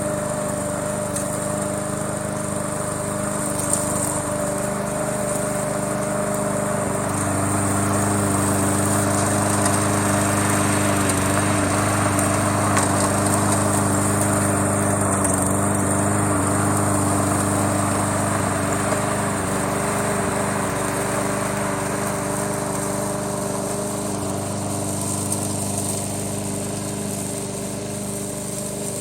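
Remote-control push mower running steadily as it cuts grass. It grows louder about seven seconds in and slowly fades over the last ten seconds.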